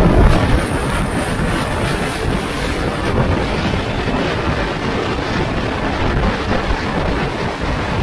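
Wind rushing over the camera microphone held outside a fast-moving ICF passenger coach, blended with the steady running noise of the train. A little louder at the very start, then steady.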